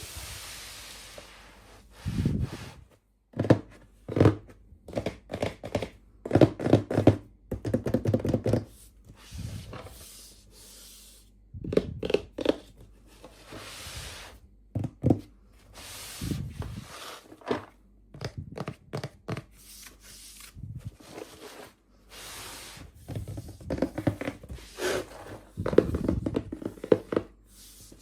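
Hands opening and handling small toy packaging: short plastic clicks and knocks come in clusters, with a few stretches of tearing and rustling.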